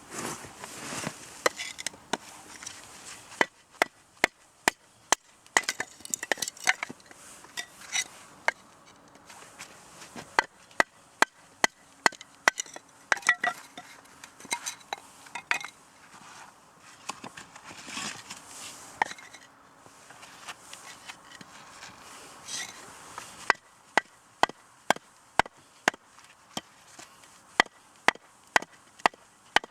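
Firewood being chopped for a campfire: runs of sharp wooden strikes, about two a second, with short pauses and handling noise between the runs.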